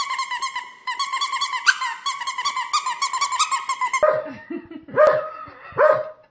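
A high, rapidly pulsing whine for about four seconds, then an abrupt change to a dog barking three times.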